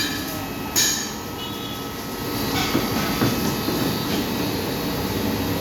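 Steady mechanical running noise, with a sharp clank at the start and another just under a second in, growing slightly louder and busier about halfway through.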